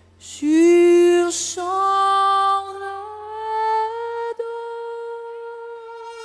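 A woman's voice singing a cappella, with no accompaniment. She steps up in pitch over a few notes, then holds one long sustained note.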